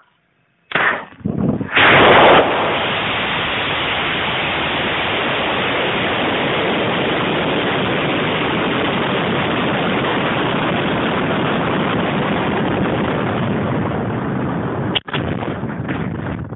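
Launch of a high-power model rocket on a 38 mm Cesaroni Pro38 motor, recorded by a camera riding on the rocket. The motor lights about a second in with a sudden loud rush that peaks within the next second, then a steady loud rushing noise runs on through the climb. Near the end comes a sharp crack, after which the rushing turns uneven and gusty.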